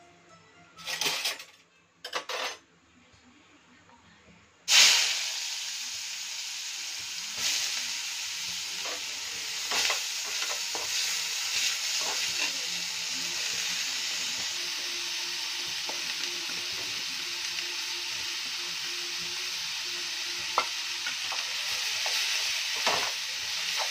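Finely chopped onions hitting hot oil in a metal kadai: a sudden loud sizzle about five seconds in, after two short noises and a quiet pause, then steady frying sizzle with a spatula stirring and scraping through the onions.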